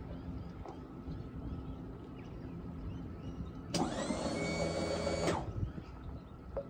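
A small electric motor whines for about a second and a half, starting about four seconds in, its pitch rising as it spins up and falling as it winds down, over a low steady hum.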